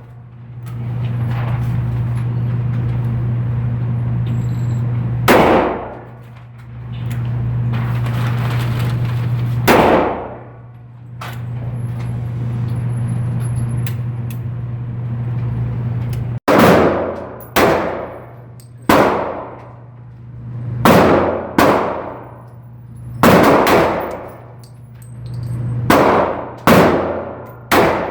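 Handgun shots echoing in an enclosed range: two shots several seconds apart, then from about halfway a string of about ten shots roughly a second apart, each ringing off briefly. A steady low hum runs between the shots.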